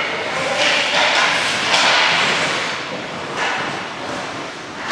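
Ice hockey skate blades scraping and carving across the ice in several hissing strokes, each starting sharply and fading over about a second.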